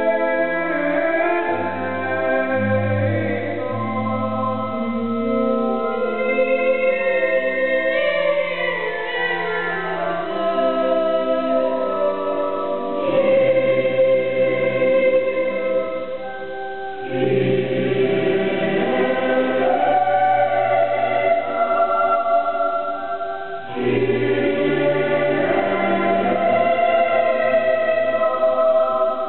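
Children's choir singing a sustained piece in several voice parts, with short breaks between phrases.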